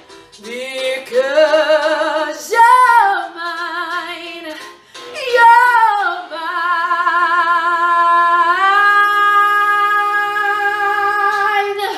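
A woman belting a song with wide vibrato: two short swooping sung phrases, then one long held note that steps up in pitch about two-thirds of the way through and stops sharply at the end.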